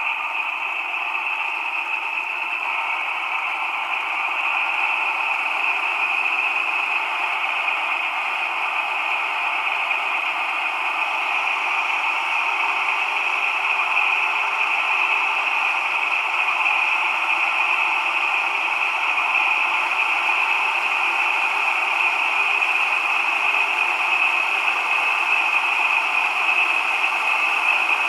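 The MB 16V652 TB10 V16 diesel engine of a DB class 216 locomotive, in a sound imitation assembled from recordings, running steadily. It comes through thin and tinny, with no bass, and slowly gets a little louder.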